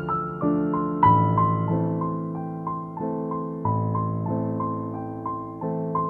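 Background piano music: a slow, gentle melody of single notes that start sharply and fade, over low held notes that change every second or so.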